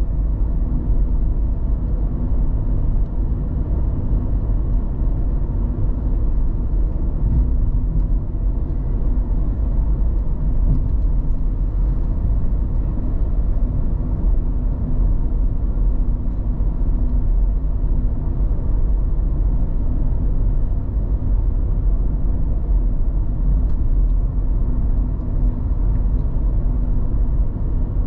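Car cruising at a steady speed on an open road: a continuous low rumble of engine and tyre noise, even throughout with no sudden sounds.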